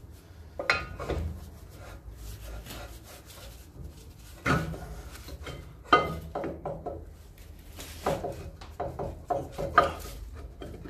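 A new Land Rover Series brake drum being worked onto the hub over brake shoes wound all the way in: the drum scrapes and rubs against the shoe linings and backplate as it is pushed and twisted. Several sharp knocks come in between, the loudest about six seconds in and another near the end.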